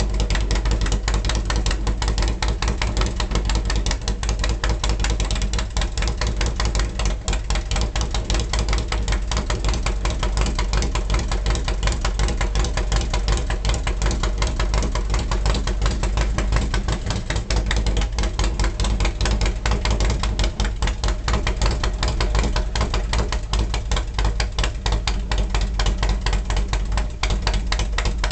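Harley-Davidson 1450 Twin Cam V-twin, fitted with an S&S gear-drive cam kit and an aftermarket carburettor, idling steadily through fishtail exhausts.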